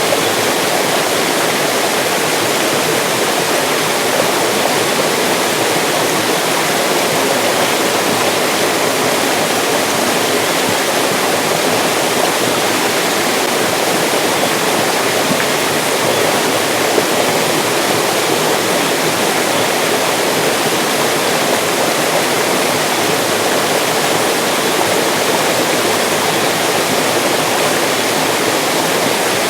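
Mountain stream rushing over rocks in a steady, loud splashing and gurgling rush, with no change in flow.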